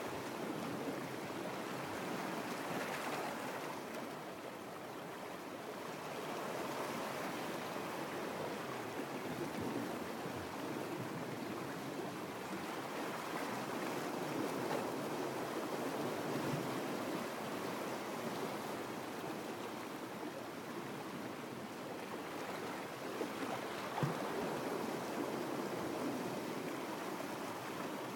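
Seawater lapping and washing against a rocky shoreline, a steady uneven wash with one brief sharp tick late on.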